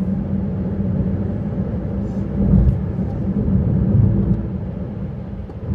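Engine and road noise of a moving vehicle, a steady low rumble that swells briefly about two and a half and four seconds in.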